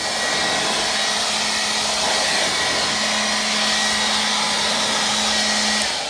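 Handheld blower running at full speed, a steady rush of air with a motor whine, blowing dust out of an upright vacuum cleaner. It comes up to speed at the start and is switched off near the end.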